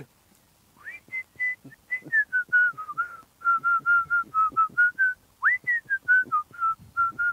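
A person whistling through pursed lips: a string of short notes starting about a second in, sliding up, then stepping down in pitch, with a brief break about five seconds in, a quick upward swoop, and another run of falling notes.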